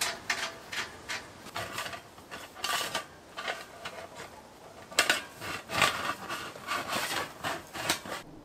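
Stainless-steel stove flue pipe sections scraping and clinking as they are pushed together and worked up through the tent's stove jack. The scrapes and knocks come irregularly and get louder and busier in the last few seconds, then stop abruptly.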